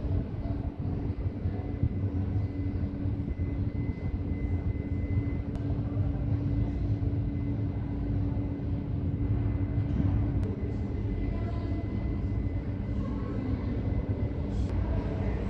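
Underground metro station ambience: a steady low rumble with a droning hum that stops about ten seconds in.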